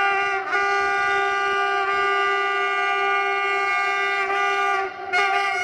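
Air horn of a CFR Class 65 diesel-electric locomotive, 65-0950-9, sounding a long, steady multi-tone chord. The horn breaks off for a moment about half a second in and again near the end.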